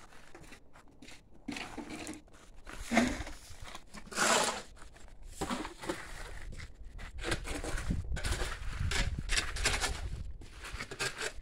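A steel shovel scraping across a concrete-covered ground and scooping concrete mix into a bucket, in a run of irregular scrapes and gritty rustles that come thicker in the second half.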